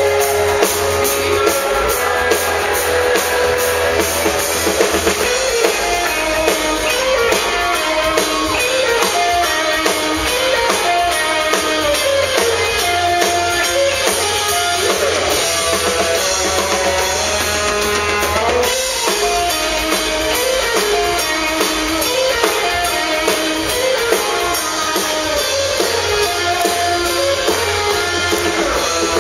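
Live country-rock band playing: an electric guitar lead with bending notes over drum kit and bass.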